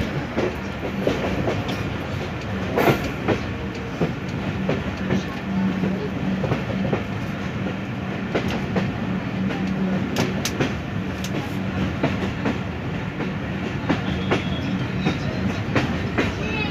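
Passenger train running along the line, heard from inside the carriage: a steady rumble of wheels on rail with scattered sharp clicks and a steady low hum underneath.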